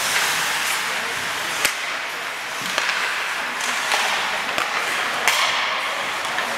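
Ice hockey play: skate blades scraping on the ice with about five sharp clacks of sticks and puck spread a second or so apart.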